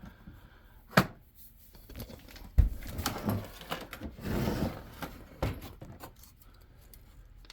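Hand-handling sounds while opening up a diesel heater unit: a few sharp clicks and knocks, the loudest a heavy thump about two and a half seconds in, and a brief rustle of packaging near the middle.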